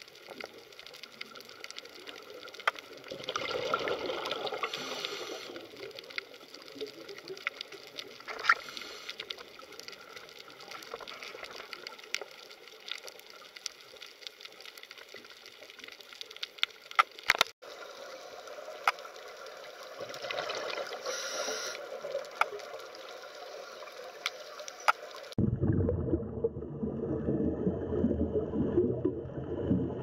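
Underwater sound through a camera housing: a steady crackling hiss scattered with sharp clicks. About 25 seconds in it cuts to a louder, low, rough bubbling rumble, the sound of a scuba diver's breathing bubbles.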